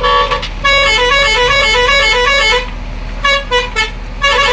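Multi-tone vehicle horn playing a short stepped tune, in a long phrase and then two shorter ones, over a steady low engine rumble.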